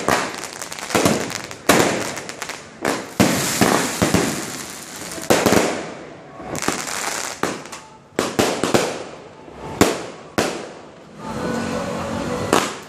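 Fireworks going off: about a dozen loud bangs at irregular intervals, each trailing off in a fading crackle and rumble.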